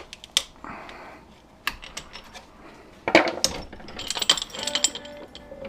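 A cutting blade working at an old fire hose where it meets its metal coupling: scattered light metallic clicks and clinks, a short scrape about a second in, and a louder clatter about three seconds in.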